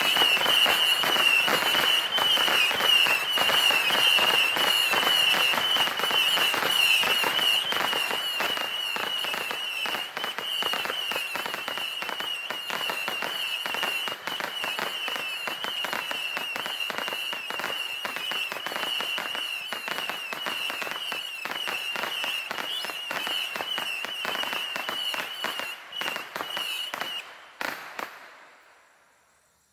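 Raccoon Fireworks 'A Million Missiles' 300-shot Saturn missile battery firing continuously: a rapid, dense stream of popping shots under a steady high whistle. It is loudest for the first several seconds and stops about 27 seconds in, with a few last pops just after.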